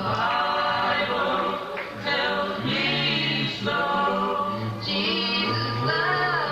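A cappella gospel vocal group singing in close harmony, with a low bass line under several voices, in phrases that break off briefly about two seconds in and near the end.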